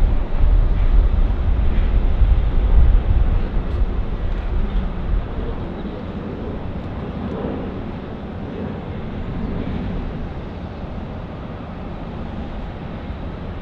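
Jet noise from an Airbus A380's four engines on final approach, a steady distant rumble. Heavy wind rumble on the microphone in the first five seconds or so eases off after that.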